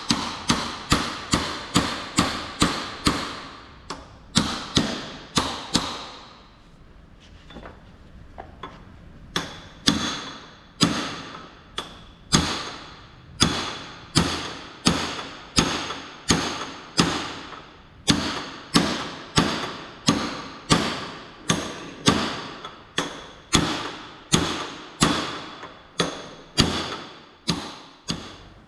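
Hammer blows on metal parts of a ZF 16S 221 truck gearbox during assembly, each blow ringing briefly. The blows come about two or three a second at first, stop for a few seconds, then go on steadily, a little slower.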